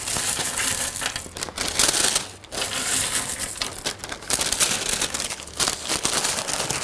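Thin paper treat bag crinkling as it is opened and handled while roasted nuts are dropped into it by hand, in bursts with a couple of brief pauses.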